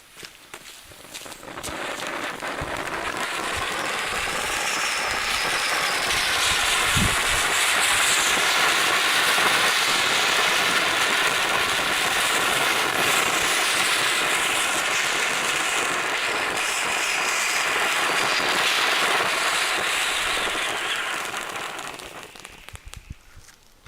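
A ground fountain firework burning: a loud, steady spraying hiss that builds up about a second and a half in, holds for around twenty seconds, then dies away near the end.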